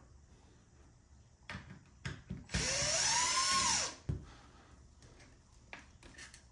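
Power drill run in one burst of about a second and a half, its motor pitch climbing and then dropping as it spins up and winds down, likely driving one of the steering-wheel screws. A few light clicks and knocks of parts being handled come before and after it.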